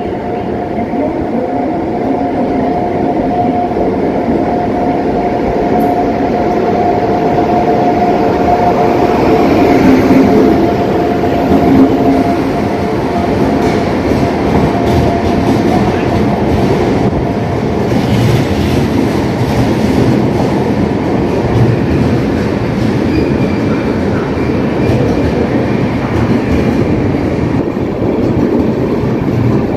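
Express train pulling into a station, its locomotive and passenger coaches rolling slowly past along the platform: a continuous rumble with wheel clatter over the rail joints, loudest about ten to twelve seconds in. A steady tone runs through the first half, and a faint high squeal comes in near the end as the train slows.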